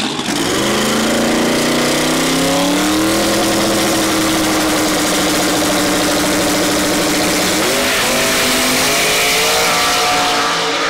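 Chevy Nova drag car's engine revving up after a burnout and holding a steady high pitch for several seconds. Near eight seconds in the pitch dips and climbs again as the car launches down the strip.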